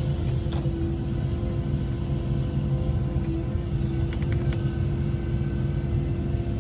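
Cat 312EL hydraulic excavator's diesel engine and hydraulics running steadily under digging load, a low drone with a steady whine over it, with a few light clicks about four seconds in as the ditching bucket works through the trench bottom.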